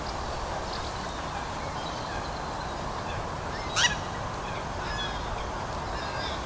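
Steady outdoor background hiss with faint, scattered small-bird chirps. A little past halfway through, one short, loud call from a waterbird.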